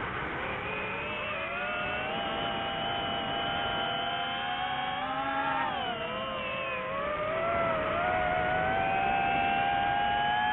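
Quadcopter drone's electric motors and propellers whining steadily, several close pitches moving together. The pitch dips a little after the middle and rises again a couple of seconds later as the motors change speed.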